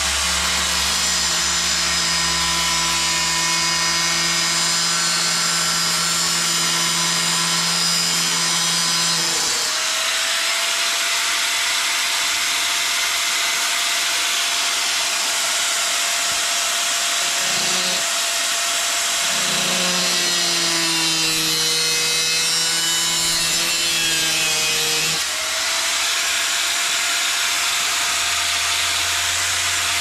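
Angle grinder cutting a small piece of sheet metal, running continuously with a steady whine over a harsh grinding hiss. A lower grinding note drops out about ten seconds in, returns for a few seconds around twenty seconds in, then drops out again as the disc's bite on the metal changes.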